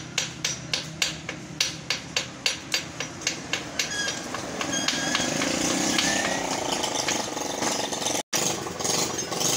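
Rapid, regular metallic knocks, about three a second, each ringing briefly, like hammering on metal. After about four seconds a steady engine-like running sound takes over, cut off for an instant near the end.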